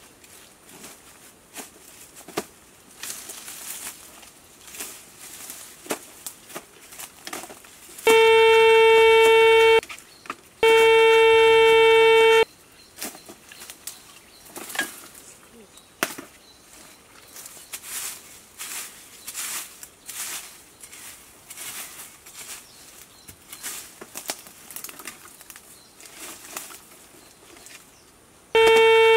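Metal detector giving a loud, steady buzzing tone, twice for about two seconds each from about eight seconds in and again near the end, the signal of metal under the search coil. Between the tones, dry leaf litter crackles and rustles underfoot.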